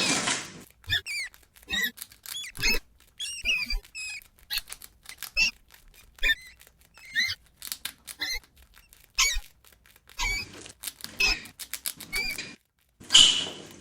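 Rats squeaking: many short, high chirps, some bending up and down in pitch, broken by a few brief hissy bursts.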